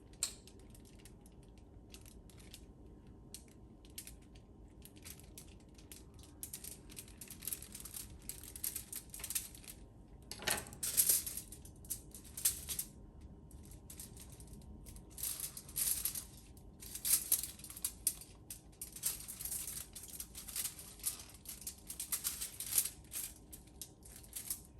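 Knife cutting through a flatbread sandwich: crisp crunching and crackling strokes in irregular runs, busier in the second half.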